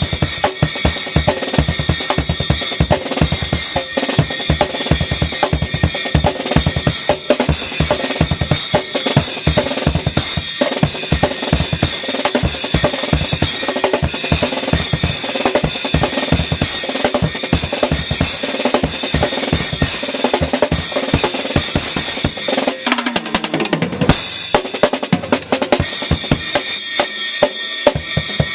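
Acoustic drum kit played hard and fast: rapid bass drum strokes under snare hits and a constant wash of cymbals. About four-fifths of the way in the bass drum drops out for a few seconds, then the kick pattern returns near the end.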